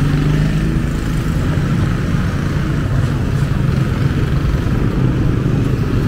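Street traffic with a small motorcycle engine running steadily close by, a low even drone over the general road noise.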